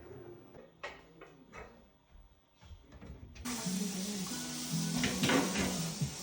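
A few light knocks and clatters of kitchen handling, then background music starts about three seconds in.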